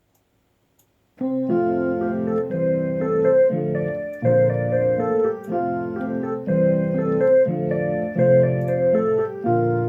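A piano-toned keyboard playing sustained chords as the instrumental opening of a song, coming in about a second in after silence.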